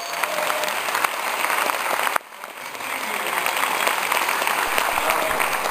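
Audience applauding in a large hall, a dense patter of many hands clapping. It drops off sharply about two seconds in, then swells again.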